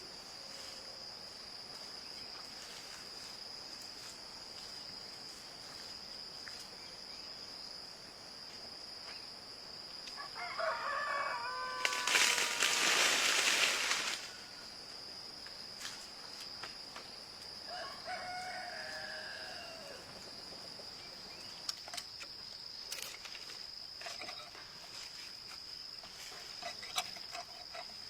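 A rooster crows, once about ten seconds in and again, more faintly, around eighteen seconds, over a steady high drone of insects. A loud rushing noise lasts about two seconds right after the first crow, and a few sharp knocks come near the end.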